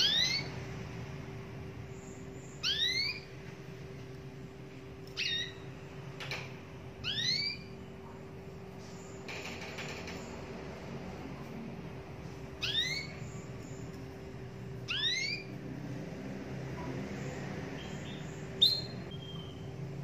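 Canary giving short, upward-sweeping call notes, about six of them spaced a few seconds apart, over a steady low hum. A sharp click comes near the end.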